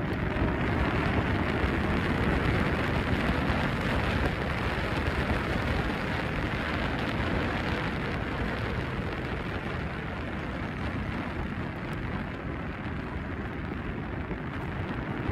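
Wind rushing over the microphone with road rumble while riding a T88-Plus electric scooter at speed, a steady noise that is a little louder in the first few seconds.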